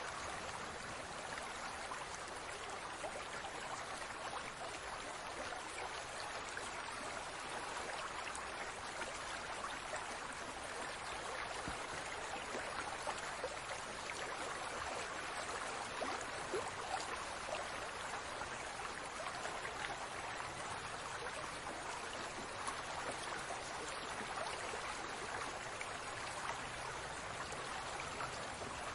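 Aquarium water bubbling and trickling steadily, with many small bubble pops through it.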